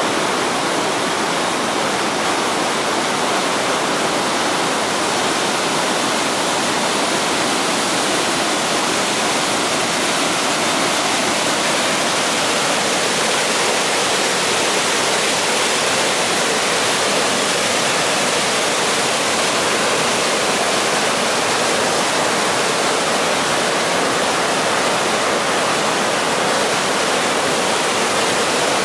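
Huka Falls: the Waikato River rushing through a narrow rock chasm as a steady torrent of white water, heard as an even, unbroken rush with little deep rumble.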